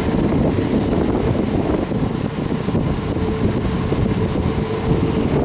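Qantas Airbus A380's jet engines running as it moves along the runway: a steady low din with a thin whine held at one pitch that stops near the end, and wind buffeting the microphone.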